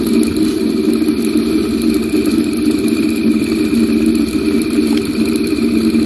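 Home-built Bedini motor, built from a fan motor, running steadily with a continuous hum and a thin, steady high whine.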